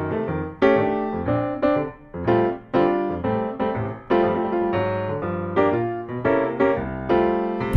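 Piano music: a melody of struck notes and chords, each fading after it is played.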